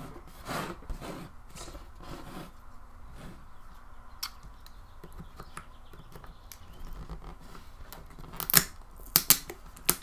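Small precision screwdriver working screws out of a 2012 Nexus 7 tablet's frame: faint scraping and ticking of the tip on the screws and metal, with a few sharp clicks near the end.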